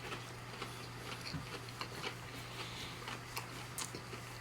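A person chewing food quietly close to the microphone, with a few faint scattered mouth clicks over a steady low hum.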